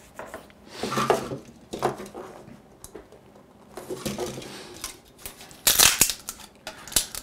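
Hard 3D-printed plastic parts clicking and rustling as they are handled, then a quick run of sharp snaps and cracks near the end as a printed piece is broken free of its raft and support material.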